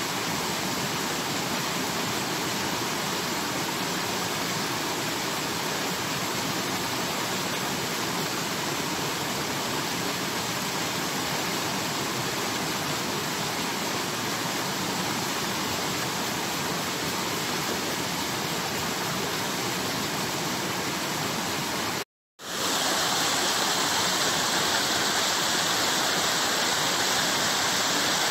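Steady rushing of water, even and unbroken. About 22 seconds in it drops out for a moment and comes back louder and hissier.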